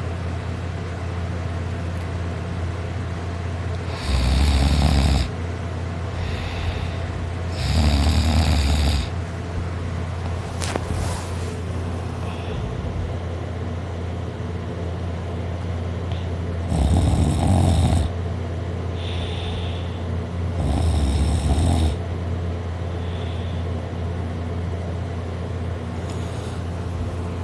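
A person asleep on their back snoring loudly: four snores about a second long each, coming in two pairs about four seconds apart, over a steady low hum.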